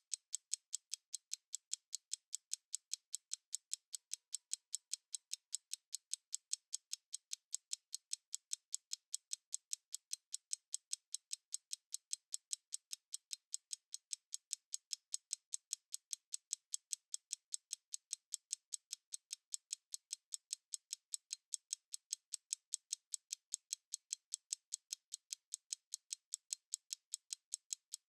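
Stopwatch ticking: fast, even, sharp clicks, several a second, thin and high with no low end.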